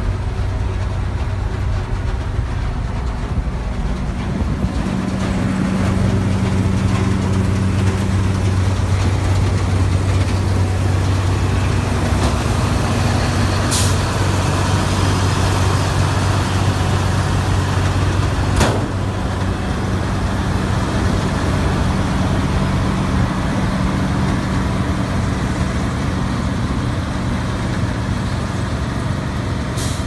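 New Holland TX68 combine harvester's diesel engine running steadily, a low hum that grows a little louder about six seconds in. Two sharp clicks come about five seconds apart in the middle.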